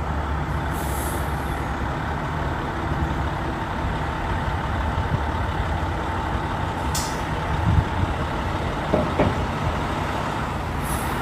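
Spartan fire engine's diesel engine idling with a steady low rumble as it creeps out of the bay, with short hisses of air from its air brakes about a second in, briefly around the middle, and again near the end.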